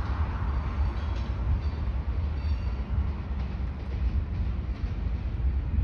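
Freight train of tank cars rolling past, a steady low rumble of wheels on rail.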